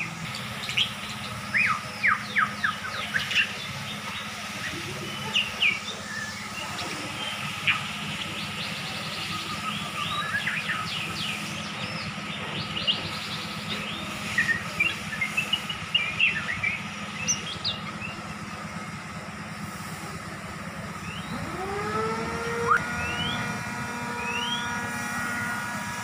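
Caged songbirds chirping: many short, quick calls, dense through the first two thirds, over a steady low hum. Near the end a steady, held sound of several tones comes in, sliding up as it begins.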